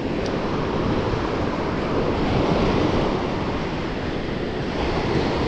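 Surf breaking and washing up a beach: a steady rushing noise of waves, with some wind on the microphone.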